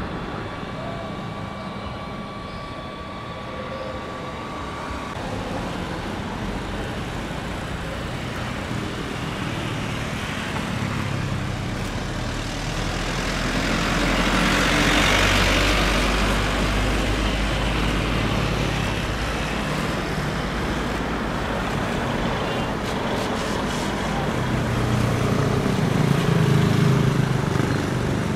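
Jet airliner engines: an AirAsia Airbus A320 passes low over the runway on landing, its engine noise swelling to a broad peak about halfway through and then easing. A louder low rumble follows near the end as the airliner rolls out on the runway after touchdown.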